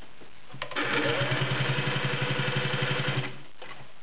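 A Singer 604 Touch & Sew all-metal gear-drive sewing machine runs at speed through five layers of leather with a fast, even stitching rhythm. It starts with a click about half a second in and stops near the end.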